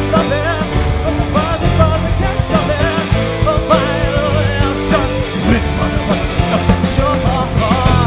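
Live rock band playing a song, with a woman and a man singing over electric guitar, bass and drums.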